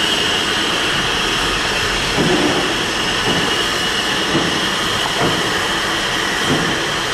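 Merchant Navy class Pacific steam locomotive hissing steadily as it is turned on a turntable, with a soft knock about once a second.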